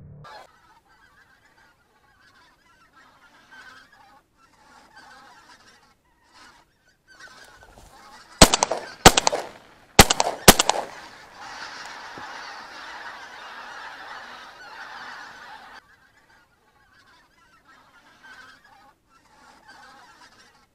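A flock of geese honking overhead, with four shotgun shots in two quick pairs about halfway through, the loudest sounds here. After the shots the honking grows denser and louder, then cuts off suddenly.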